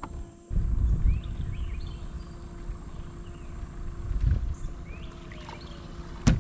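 Low, uneven rumbling that starts suddenly about half a second in, with a few short rising chirps above it and a sharp knock near the end.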